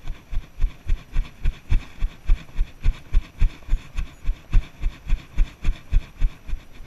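Icelandic horse tölting on a sandy dirt trail: an even run of low hoofbeat thumps, about three and a half a second, heard through a chest-mounted camera. The rhythm is the smooth, even four-beat tölt gait.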